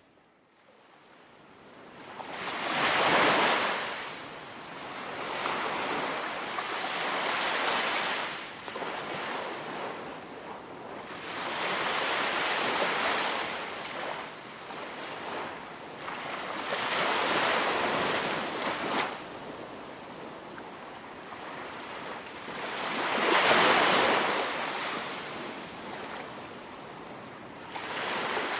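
Ocean waves breaking and washing up a beach in slow, repeated swells of surf about every five seconds. The loudest break comes about three seconds in and another near the end, after a near-silent start.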